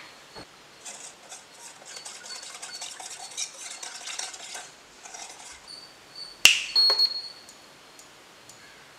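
Spoon stirring and scraping in a metal vessel, with many small clinks, then a loud metal clink about six and a half seconds in that rings on briefly, and another clink just after.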